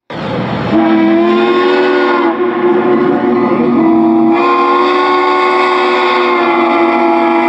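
Steam locomotive chime whistle sounding one long blast, a chord of several notes held steady, after a short rush of noise at the start; the chord shifts slightly about two and a half and again about four and a half seconds in.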